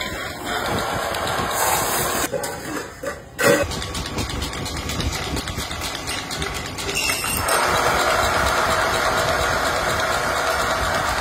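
Metal-spinning lathe running while a hand-held spinning tool is pressed against an aluminium pot blank, with a steady scraping of metal on metal. There is one sharp knock about three and a half seconds in, and the scraping grows louder about seven and a half seconds in.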